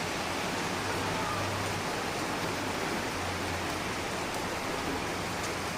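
Rain falling steadily, an even hiss with no letup.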